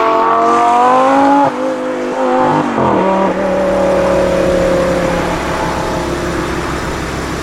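2009 Lamborghini Gallardo LP 560-4's 5.2-litre V10 with its exhaust valves open in Sport mode, revs climbing under acceleration. About a second and a half in, the note breaks off sharply at a gearshift. The pitch drops again about three seconds in, then the engine settles into a lower, steadier note that slowly eases.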